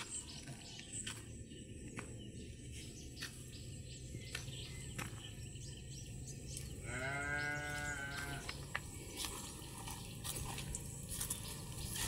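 A Balami sheep bleats once, about seven seconds in. It is a single call of about a second whose pitch drops at the start and then holds.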